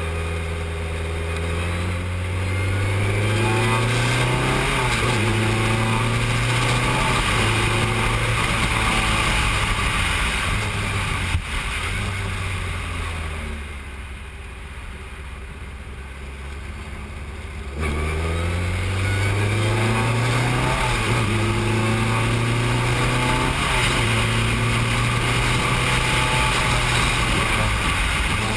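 Formula 3 single-seater's engine heard from the cockpit under hard acceleration, its pitch climbing and dropping at each upshift. About twelve seconds in it goes quieter and lower off the throttle for a corner. A few seconds later it comes back on full power and climbs through the gears again.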